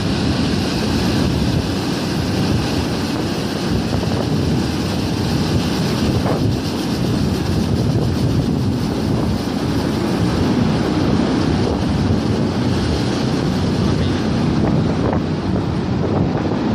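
Recycled flush water rushing across a dairy barn floor, a steady loud rush.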